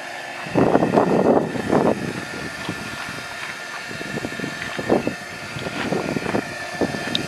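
Small 12-volt air-mattress blower whining steadily as the startup blower of a charcoal gasifier, with loud irregular rustling noise from about half a second to two seconds in and smaller crackles after.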